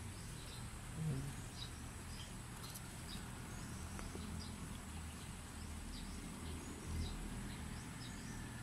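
Faint, scattered high chirps of small birds, repeating irregularly over a steady low rumble.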